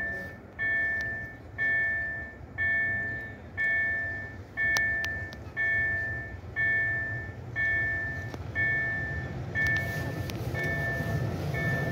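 Railway warning bell ringing an even, bell-like ding about once a second as a train approaches. The low rumble of the oncoming train grows over the last couple of seconds.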